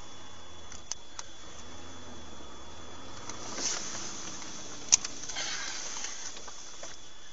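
Dashcam audio from inside a moving vehicle: a steady hiss of cabin and road noise under a faint constant high whine. A few light clicks come through, along with two short rushes of noise, one just before four seconds in and one after five. One sharp click about five seconds in is the loudest sound.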